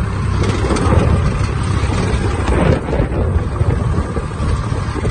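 Swaraj 855 tractor's three-cylinder diesel engine running steadily as the tractor drives along, with wind buffeting the microphone.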